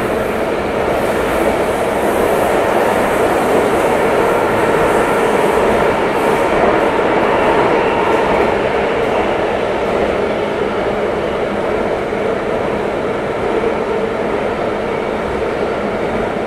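Singapore MRT train heard from inside the carriage while running in the tunnel: a steady rumble of wheels on rail and running gear. A faint high hiss over the first several seconds fades out.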